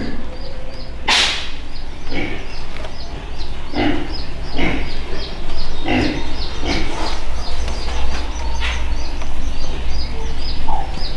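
Domestic ducks quacking on and off, several short loud calls a second or so apart, over a rapid row of faint high peeps, about three a second.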